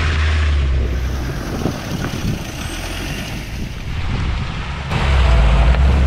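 Land Rover 4x4's engine running, with wind noise on the microphone. The engine hum is strongest at the start, eases off, and swells again about five seconds in.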